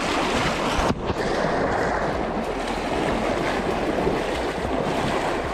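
Fast-flowing river water rushing, a loud, steady noise with a brief dip about a second in.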